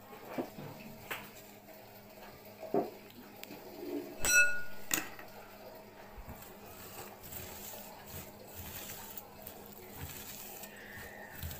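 Metal spoons clinking against a glass mixing bowl as ground spices are tipped in, with one ringing clink about four seconds in. From about six seconds, a hand rustling and squishing sliced onions as it mixes them with the spices.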